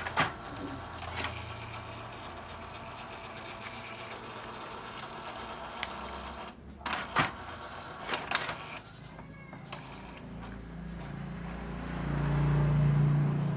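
Epson L4150 ink tank printer running a test print after being reset: motor whirring with sharp clicks from the paper feed and print-head carriage, and a louder low motor drone building near the end as the carriage moves.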